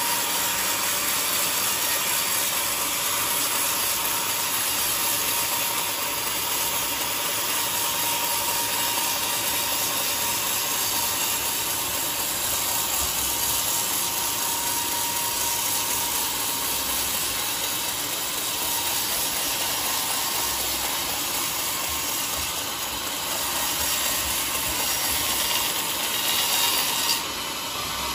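Band sawmill ripping a teak log into planks: a steady, hissing cut that drops off suddenly near the end.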